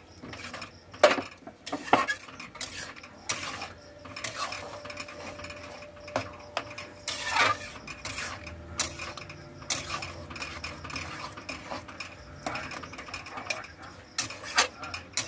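A utensil stirring and scraping through thick dal in a metal pan, with irregular clinks against the pan's sides and rim.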